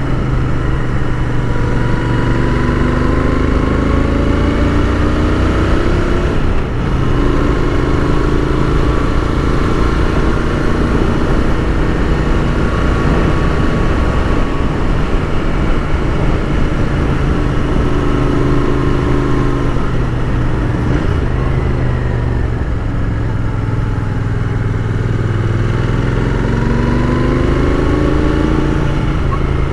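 Royal Enfield Continental GT 650 parallel-twin engine running under way, its pitch climbing and dropping several times as the bike accelerates and changes gear.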